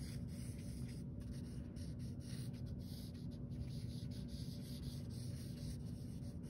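Quick strokes of a drawing tool scratching and rubbing across paper as a figure is sketched, over a steady low hum.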